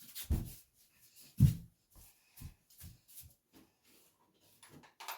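A string of irregular knocks and thumps, the loudest about a second and a half in, then lighter ones every half second or so: someone moving about and handling objects while fetching tools.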